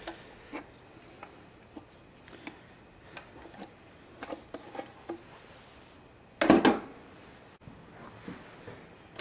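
Small clicks and knocks as a rusty sheet-metal tiller transmission with its tine shaft is handled and turned over by hand, then one loud clunk about six and a half seconds in as it is set down on a plastic crate.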